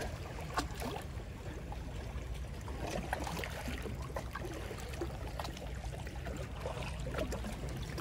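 Seawater lapping and trickling, with a few faint splashes and ticks over a steady low rumble.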